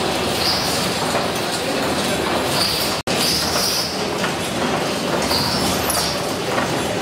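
1914 Richard Hornsby twin-cylinder Stockport gas engine running steadily, a continuous mechanical clatter of crankshaft, connecting rods and valve gear, with a short hiss every second or two. The sound cuts out for an instant about three seconds in.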